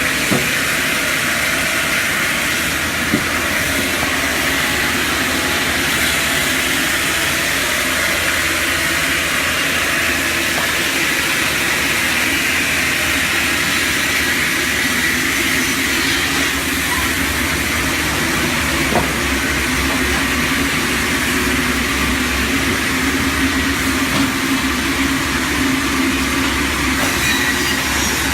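High-speed log cross-cutting saw machine running steadily, with a few brief knocks.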